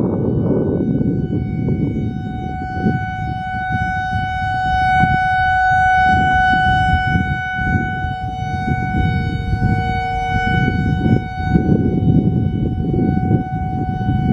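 Whelen WPS-4004 electronic outdoor warning siren, driven by an analog ESC-864 controller, sounding its Alert signal: one steady tone that swells to its loudest midway and then eases off. Strong wind buffets the microphone underneath.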